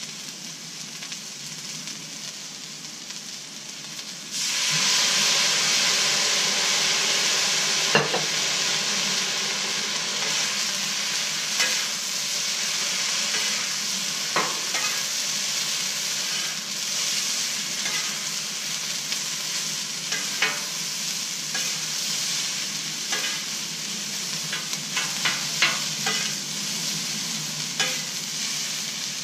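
Fried rice sizzling on a Blackstone steel flat-top griddle; about four seconds in the sizzle suddenly gets much louder. Metal spatulas then scrape and clack against the griddle top as the rice is tossed, the clacks coming more often near the end.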